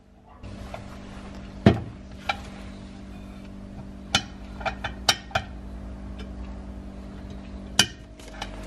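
Sharp metallic clinks and knocks from handling a restored cast-iron charcoal iron and its metal handle and lid, about eight in all. The loudest is nearly two seconds in and another comes near the end, over a steady low hum.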